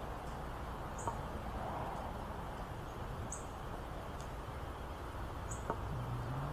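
Outdoor park ambience: a steady low rush with a short, high chirp about every two seconds and a couple of light clicks; a low hum comes in near the end.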